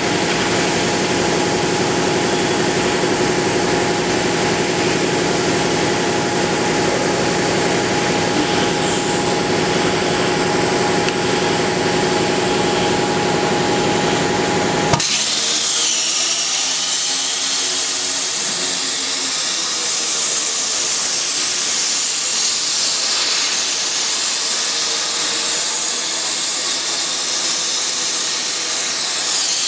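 CNC plasma tube cutting machine: for about the first half, steady machine noise with a hum and a high whine from the running machine. It then changes abruptly to the plasma torch cutting the steel square tube, a loud steady hiss that wavers slightly in pitch.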